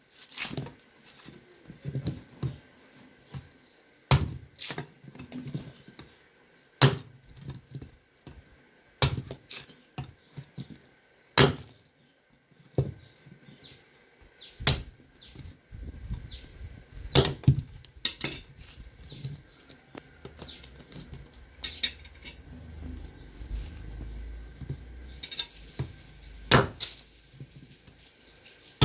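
Blade chopping into a coconut: sharp, separate strikes a second or several seconds apart, some in quick pairs.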